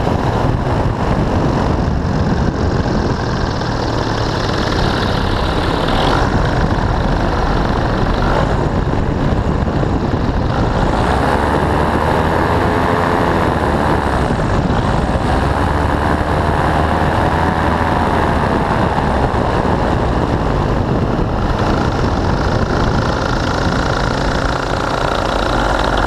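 Steady, loud rush of airflow buffeting the microphone of a paraglider turning in a tight spiral, with wavering tones that rise and fall twice around the middle.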